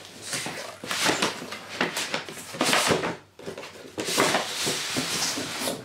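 Cardboard packaging being handled during an unboxing: irregular rustling and scraping, in several bursts with short gaps.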